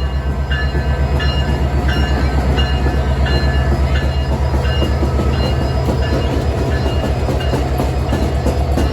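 The CPKC Holiday Train moving past at close range: a heavy low rumble with rail clatter, and a short high ringing tone repeating about twice a second.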